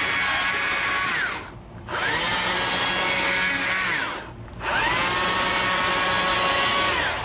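Stihl chainsaw revved hard in three bursts while carving feather groups into a wooden owl. Twice the throttle is eased off and the pitch falls before climbing back up. Near the end it drops back to idle.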